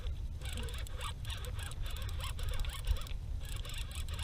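Water splashing and trickling against a sit-on-top fishing kayak out on the water, an irregular crackle that thins briefly about three seconds in, over a steady low rumble of wind on the microphone.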